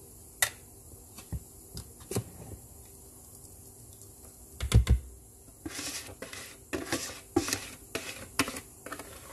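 Wire whisk clicking and scraping against a plastic mixing bowl as liquid batter is worked into flour, in quick strokes from about six seconds in. Before that, scattered light clicks and one loud dull thump just before five seconds in.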